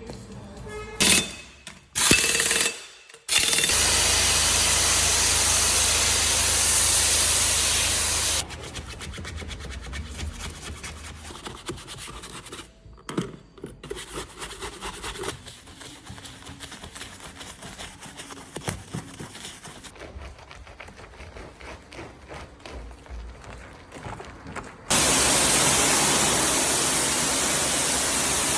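Car detailing work: two long spells of loud, steady hissing, like a spray or air jet, each several seconds long and ending abruptly, with short bursts before them. Between the spells come quieter rubbing and scattered clicks.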